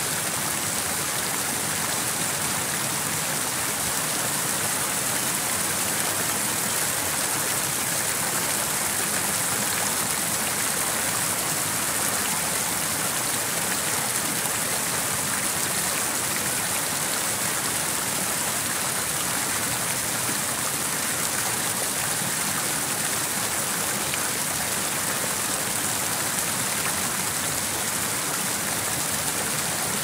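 City fountain's water falling and splashing in a steady, unbroken hiss that stays the same throughout.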